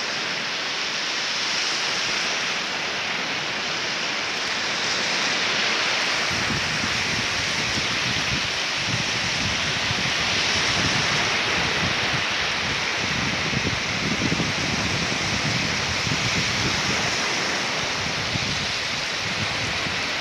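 Steady hiss of surf washing on a sandy beach. An irregular low rumble of wind buffeting the microphone joins about six seconds in.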